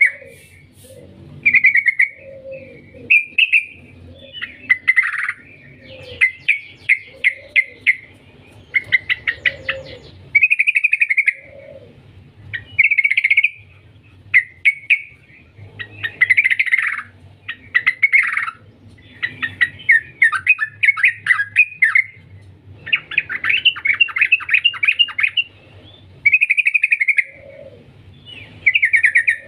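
Yellow-vented bulbul (trucukan) singing in a long, persistent series of short bubbly phrases, one every second or two. Several phrases are fast stuttering rattles: the 'ngetir' trilling that keepers prize in a bird in full song (gacor).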